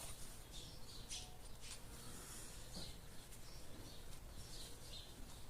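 Faint, irregular scratchy squeaks as the fan motor's shaft and bushing area is wiped clean by hand.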